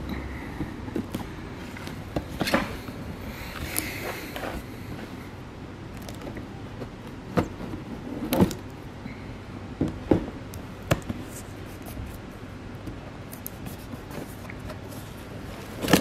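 A cardboard headphone box handled by hand: scattered taps and knocks, with a short rustle of packaging about three seconds in, over a steady low background hum.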